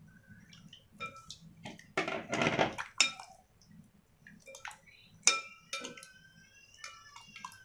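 Chicken pieces being mixed by hand in a wet marinade in a glass bowl: liquid sloshing with irregular clinks and knocks against the glass, and a faint ringing near the end.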